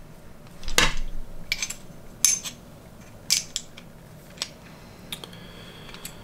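Light metallic clicks and clinks from handling a KME guided knife sharpener while a 600-grit stone is fitted to its guide rod, about one every second.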